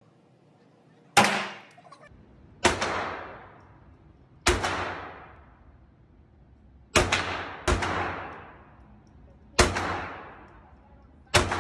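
Seven gunshots, single shots one to two seconds apart, two of them close together near the middle, each followed by a long echoing tail.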